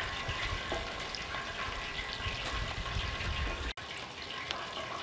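Chicken wings deep-frying in hot oil in Dutch ovens on a propane camp stove: a steady bubbling sizzle with fine crackles, which breaks off for an instant almost four seconds in.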